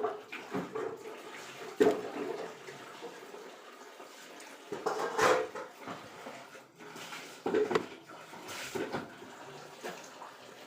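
Irregular splashing and sloshing of water with scattered knocks of kitchenware, as when food is washed or handled in a basin; the loudest splashes come about two and five seconds in.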